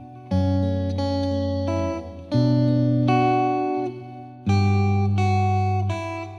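Background music: plucked guitar notes, a new chord struck about every two seconds and left to ring.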